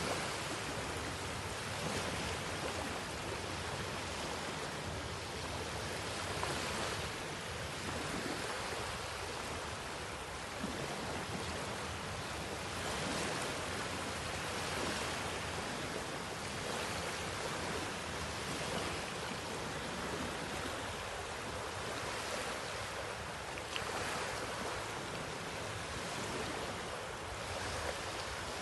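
Small surf washing onto a shallow sandy beach: a steady rushing wash that swells every two to three seconds as each low wave breaks and runs up the sand.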